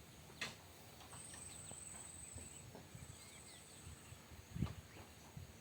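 Faint outdoor ambience: small birds chirping, with a thin high insect-like buzz through the middle. A sharp click comes about half a second in and a low thump near the end.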